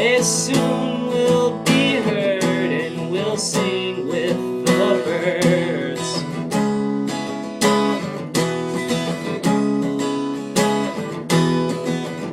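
Acoustic guitar strummed in a steady rhythm as a song's outro. A wavering, wordless vocal line runs over the strumming through about the first half, then the guitar carries on alone.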